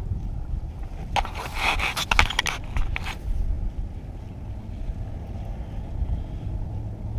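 Wind rumbling on the microphone beside choppy river water, with a burst of rustling and clicks from about a second in lasting about two seconds.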